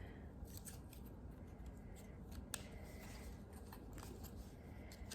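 Faint scattered clicks and light rustling from a small cosmetic package being handled and opened by hand.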